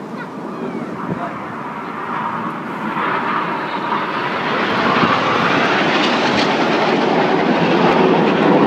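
Jet aircraft of a formation display team flying low past, their engine noise growing steadily louder from about two seconds in and staying loud near the end.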